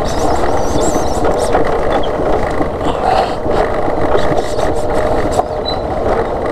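Motorcycle engine running at low speed over a rough dirt road, with scattered knocks and rattles from the bike bouncing on the uneven ground.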